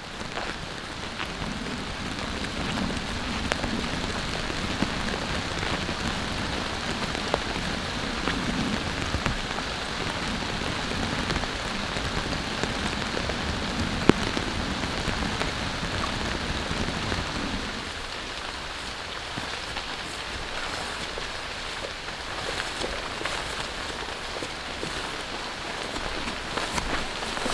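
Steady rain falling, an even hiss, with a low rumble underneath that stops about two-thirds of the way through and a single sharp tap near the middle.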